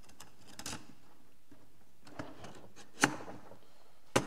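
Clicks and knocks of a leg tube being twisted and pushed into the leg holder of a bag stand, with two sharp clicks about a second apart near the end.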